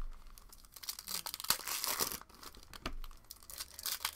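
Foil wrapper of a basketball trading-card pack torn open and crinkled by hand: a run of irregular crackles and short rips.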